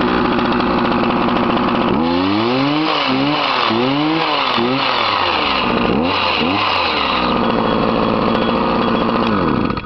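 Old two-stroke chainsaw engine running: it idles, then is revved up and down several times from about two seconds in, settles back to idle, and cuts off abruptly at the very end.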